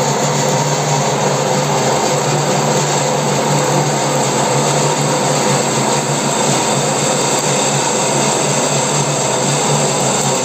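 Metal lathe running with a large twist drill cutting into a spinning steel workpiece: a steady machine drone with a constant hum beneath the cutting noise.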